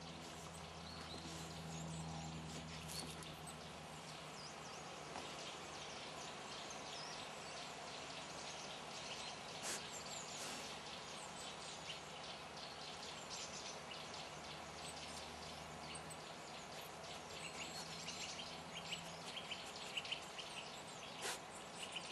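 Outdoor garden ambience: small birds chirping and twittering over a steady low hum, with a couple of sharp clicks.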